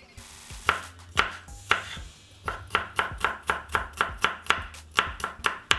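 Ceramic knife chopping garlic cloves on a bamboo cutting board: a few separate knocks, then from about halfway a quick, even run of about five chops a second as the garlic is minced fine.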